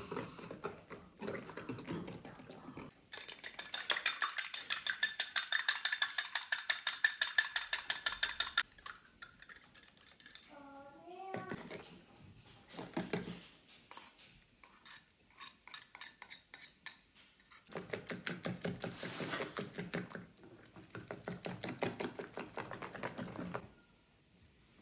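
A utensil beating and stirring in a mixing bowl: quick, even clinking strokes in two spells of about five seconds each, with a quieter pause between them.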